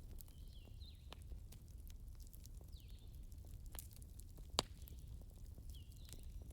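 Wood fire burning in a fireplace: a low rumble of flames with scattered small crackles and one sharp pop about four and a half seconds in. A faint high falling chirp recurs every second and a half or so.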